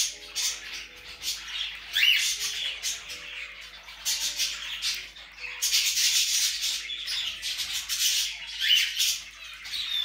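Cockatiels squawking in short, harsh, high-pitched calls again and again, with a quick rising chirp about two seconds in and another near the end.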